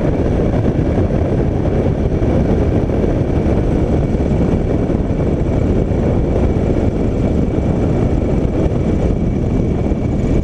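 Piper PA-20 Pacer's Lycoming O-290 engine and propeller running steadily in flight, mixed with heavy wind rush over the wing-mounted camera as the plane skims a grass runway.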